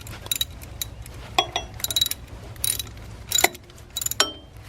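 Ratchet wrench clicking in several short bursts as the 12 mm bolts of a bracket are run in, with a few brief metallic rings of tool on metal. A steady low hum sits underneath.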